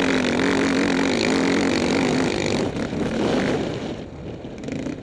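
Dirt bike engine running under throttle, its note wavering slightly, with wind rush over it. About two and a half seconds in the engine note drops away and the sound gets quieter as the bike eases off the throttle.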